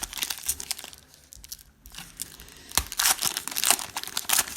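Trading-card pack wrappers crinkling and tearing as packs are opened and cards handled, a run of quick rustles and clicks that drops away for about a second in the middle and then picks up again.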